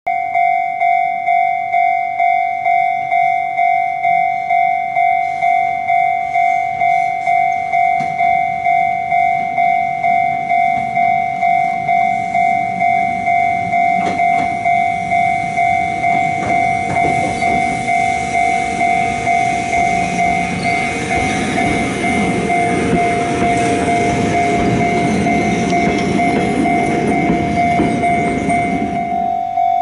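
Level-crossing warning bell ringing steadily, about one and a half strikes a second, while a Jōmō Electric Railway electric train passes from about halfway through, its wheels rumbling and clattering on the rails, louder as it goes by and dropping away near the end.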